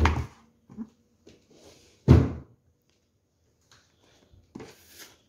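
Two dull thuds about two seconds apart, the second louder, from a cardboard cling-film box being set down on a table and a kitchen drawer being pushed shut. A short rustle near the end as the box is handled.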